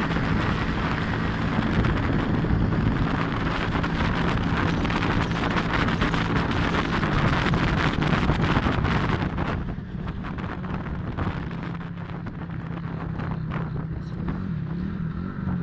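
Motorcycle engine running at road speed with heavy wind buffeting the microphone. About two-thirds of the way through the wind noise eases and the sound grows quieter as the bike slows, the engine still running.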